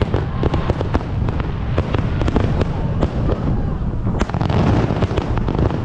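Fireworks going off in rapid succession: a dense run of sharp bangs and crackling pops, several a second, over heavy low booming.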